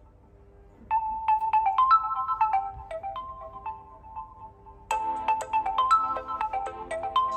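A stock realme C11 ringtone starts about a second in: a short melody of quick, bright notes. The phrase begins again, louder and fuller, about four seconds later.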